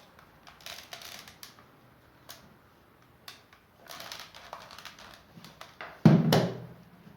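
Plastic hair dryer housing being pried open by hand: scattered clicks and scraping of plastic parts, with one loud thump about six seconds in.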